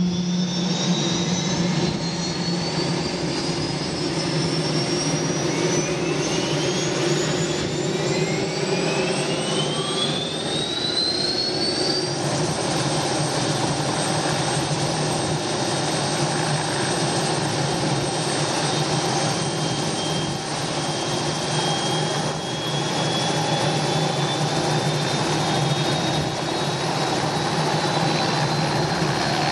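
Enstrom 480B turbine helicopter's Rolls-Royce Model 250 turboshaft spooling up just after light-off: several rising whines climb for about the first ten seconds over a steady low hum, then settle into a steady whine as the engine stabilises at idle with the rotor turning. Over the last several seconds the whine edges up again as the throttle grip is advanced toward flight idle.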